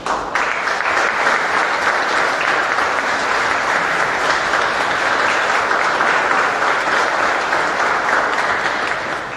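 Audience applauding: steady clapping that begins abruptly just after the start and fades out near the end.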